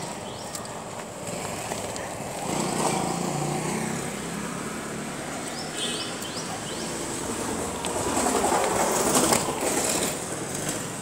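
Rustling of a woven plastic sack being handled, in two stretches: one starting about two seconds in, the other about eight seconds in.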